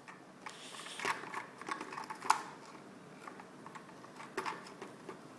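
Scattered light clicks and knocks, with one sharp tap a little over two seconds in.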